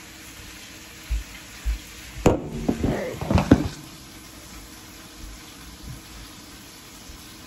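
Handling noise on a phone's microphone: two soft thumps about a second in, then a burst of knocks, clatter and rubbing as the phone is picked up and propped on the counter, followed by a few faint bumps.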